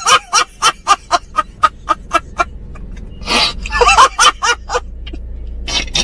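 A man laughing hard in rapid cackling bursts, about four a second, then pausing and breaking into laughter again twice.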